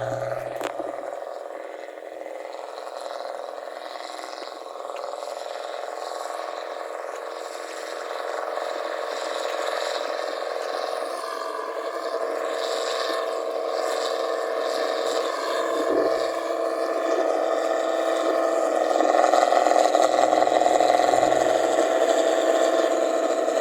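Rice combine harvester's engine running with a loud exhaust, growing steadily louder and loudest a few seconds before the end.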